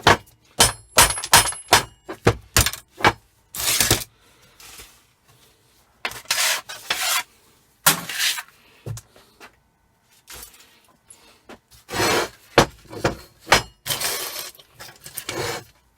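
Small metal scrap being broken apart and sorted by hand: a quick run of sharp knocks in the first few seconds, then scattered scraping, rubbing and clinking of the pieces.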